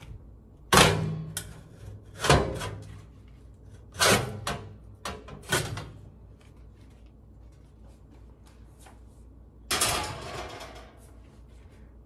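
Metal tray of a toaster oven being slid out and handled: a series of about half a dozen sharp metallic scrapes and clanks, each ringing briefly. The loudest comes about a second in and the last near ten seconds.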